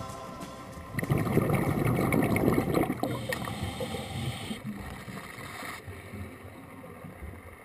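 Underwater bubbling rush from a scuba diver's exhaled air, starting suddenly about a second in and fading away over the next few seconds.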